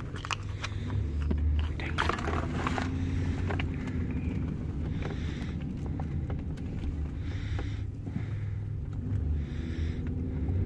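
Steady low rumble of a car's interior, with sharp plastic clicks and scrapes in the first few seconds as a vending-machine toy capsule is snapped open by hand.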